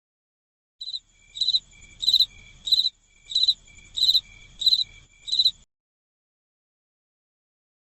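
Cricket chirping: a run of about eight evenly spaced high chirps, roughly three every two seconds, starting about a second in and cutting off abruptly past the halfway point.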